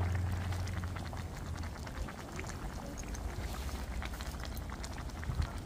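Catfish curry simmering in a stainless frying pan on the burner, its thick gravy bubbling with many small pops and crackles. A low hum fades out over the first couple of seconds.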